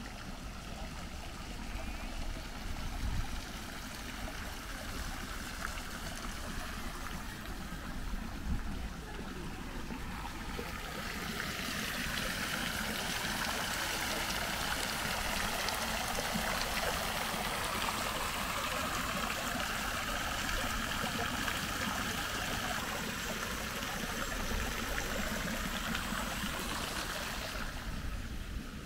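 Running water splashing from garden fountains and water channels: a steady hiss that swells in about a third of the way through and fades near the end.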